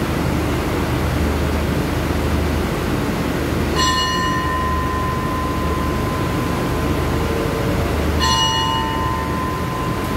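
A metal station bell struck twice, about four and a half seconds apart, each strike ringing on with a clear tone, over the steady low hum of the standing diesel express train idling at the platform.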